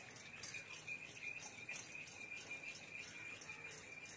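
Curd being beaten with a metal spoon in a bowl, the spoon clinking against the bowl in a quick, even rhythm of about four strokes a second.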